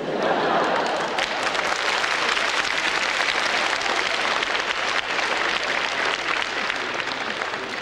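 A large theatre audience applauding, the clapping breaking out all at once right after a punchline and holding steady before easing slightly near the end.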